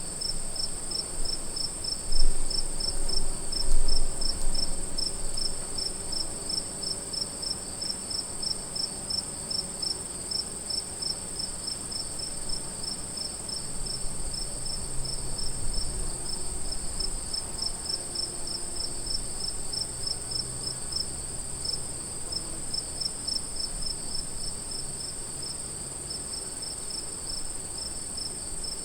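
Crickets chirping: a steady high trill with a second, pulsing chirp just below it, repeating several times a second. Underneath is a low background rumble that swells briefly twice a few seconds in.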